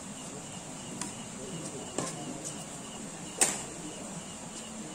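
Badminton rackets hitting a shuttlecock during a rally: a few sharp hits about a second apart, the loudest about three and a half seconds in.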